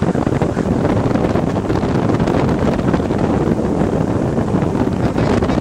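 A moving bass boat: steady wind buffeting the microphone over the running outboard engine and water rushing along the hull.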